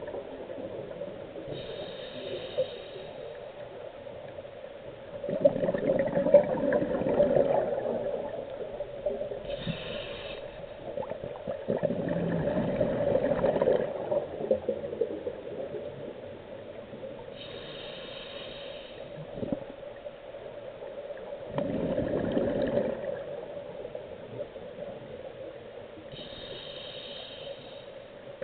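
Scuba diver breathing through a regulator, heard underwater: a brief hiss of inhalation, then a bubbling rush of exhaled bubbles, repeating about every eight seconds, four breaths in all. A steady low hum runs underneath.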